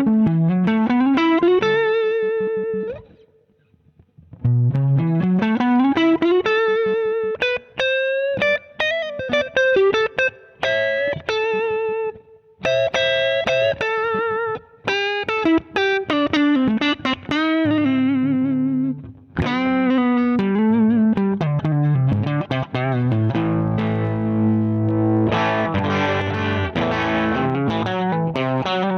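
Electric guitar played through a Zander Circuitry Surplus overdrive pedal. It plays single-note lead phrases with rising slides and vibrato, with a brief pause about three seconds in, then ringing chords near the end.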